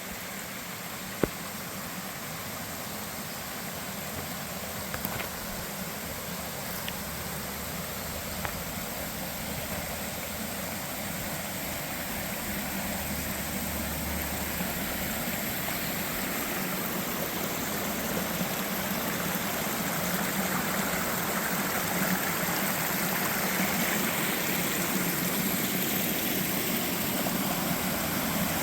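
Rushing water of a waterfall and stream, a steady noise that grows gradually louder. A single sharp click about a second in.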